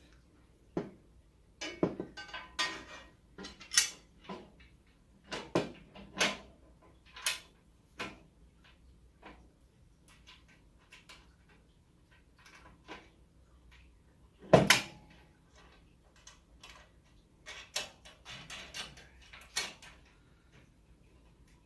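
Scattered metal clicks and clanks as a steel rack plate and M6 nuts and screws are handled and fitted to a steel open-frame server rack. The knocks are irregular, with short quiet gaps, and the loudest clank comes a bit over halfway through.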